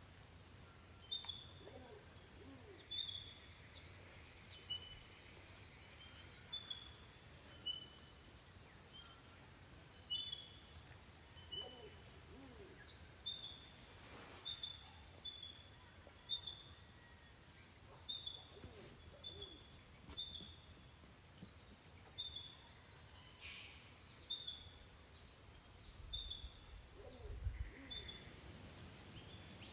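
Birds calling: a short high chirp repeated about once a second, with a few higher, quicker twittering phrases among them.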